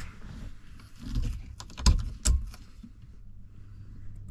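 Handling noise: scattered light clicks and taps of small hard objects, with a few louder knocks about two seconds in, over a low steady hum. It cuts off suddenly at the end.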